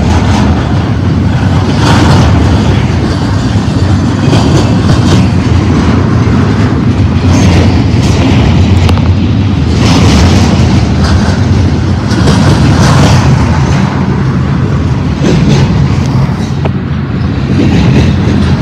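Double-stack intermodal freight train's well cars rolling past close by: a loud, steady low rumble of steel wheels on rail, with a clack every two to three seconds as the wheel trucks pass.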